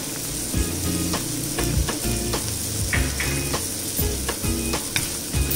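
Chopped onions sizzling in butter in a metal frying pan, flour just added to start a roux, with scattered clicks and scrapes of a wooden spatula against the pan.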